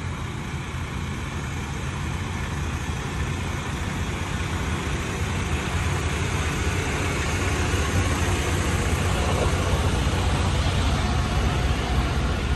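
Semi truck's diesel engine running steadily with a low hum, slowly getting louder.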